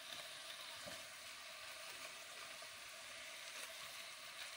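Faint steady sizzling of beef strips cooking in their juices in a frying pan, with a few soft faint taps as raw pumpkin slices are laid on top.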